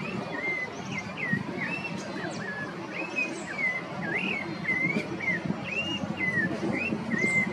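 Rufous-bellied thrush singing: an unbroken run of short, varied whistled phrases, each a fraction of a second, rising and falling in pitch. Faint higher chirps and a low hum of background noise lie underneath.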